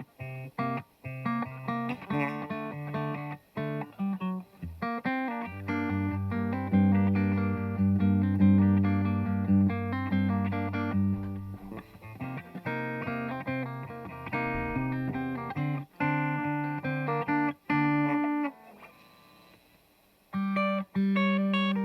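Yamaha Revstar electric guitar through its bridge DiMarzio P90 Super Distortion pickup, played with a clean tone: a riff of plucked single notes and held low notes. The playing stops briefly near the end, then starts again.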